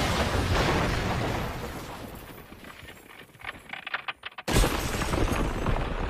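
Anime sound effects of a magic crystal breaking: a rumbling whoosh fades, a few sharp cracking clicks sound, then the crystal shatters with a sudden loud crash about four and a half seconds in, followed by a spray of breaking noise.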